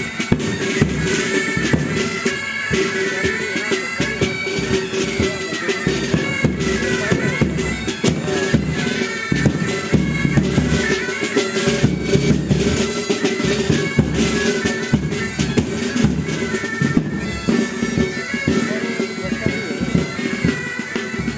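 Pipe band playing: bagpipes sound a steady drone under a running chanter melody, with drums beating along.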